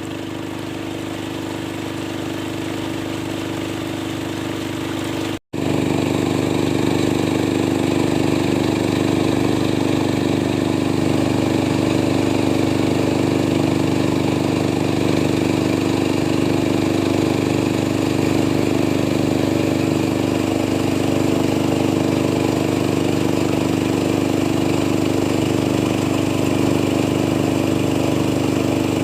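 Small engine of a homemade river gold-mining machine running steadily. The sound drops out for a split second about five seconds in, then carries on a little louder.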